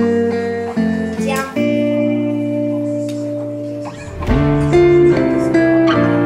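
Background music: guitar chords that change every second or so.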